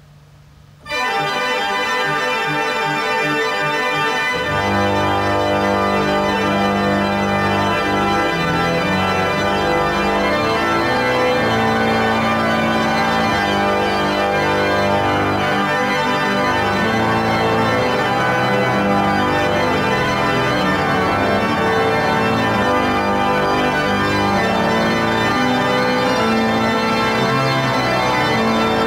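Pipe organ improvising: a full chord comes in suddenly about a second in, deep bass notes join a few seconds later, and sustained chords then move on steadily.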